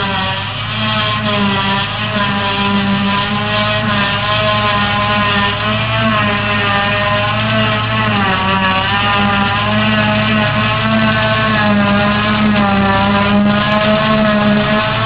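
Engine running steadily under load, its pitch wavering slightly up and down.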